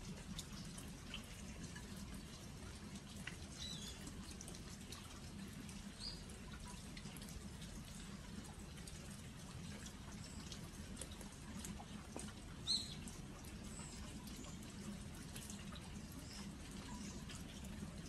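Light autumn rain dripping and pattering onto earthenware jangdok crocks, scattered single drops ticking throughout. A few short, high bird chirps come through, the loudest about two-thirds of the way in.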